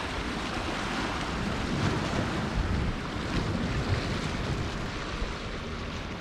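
Sea water washing against a stone breakwater, with wind buffeting the microphone in low gusts.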